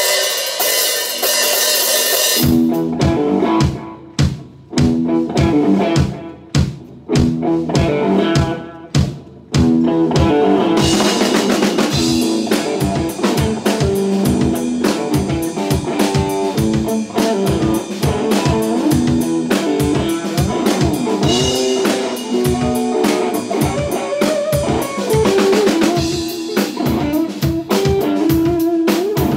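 Instrumental blues played live on a Stratocaster-style electric guitar and a drum kit. It opens on a cymbal crash, then plays separate stop-time hits with short gaps between them, and from about ten seconds in the guitar and drums play continuously.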